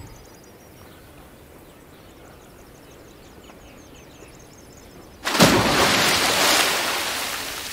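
Birds chirping faintly over a quiet outdoor background. About five seconds in comes a sudden loud splash of water in a swimming pool, and its wash dies away slowly.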